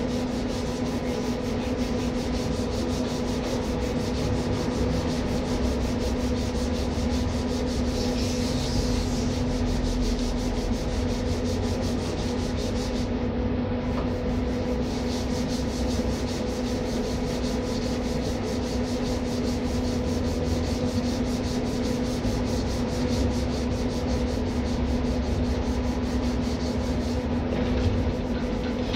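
Abrasive cloth rubbed back and forth over the XLPE insulation of high-voltage cable ends, a continuous scratching, over a steady low hum.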